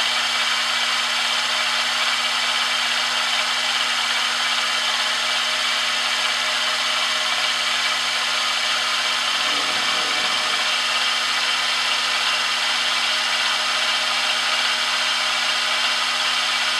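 Milling machine's spindle motor running at a steady speed, an even whirring hiss with a constant hum, as the spindle turns an edge finder.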